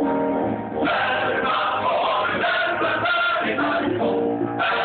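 Men's vocal ensemble singing together in harmony.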